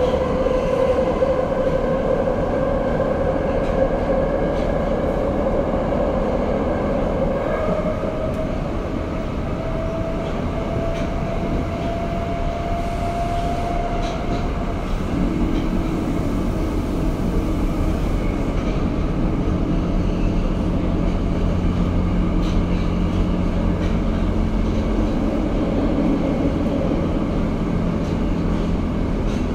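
Tokyo Metro 02 series subway car running on the Marunouchi Line, heard from inside the car: a steady rumble of wheels and running gear with a drive whine that rises slowly in pitch over the first half. About halfway through the whine gives way to two lower, steady tones.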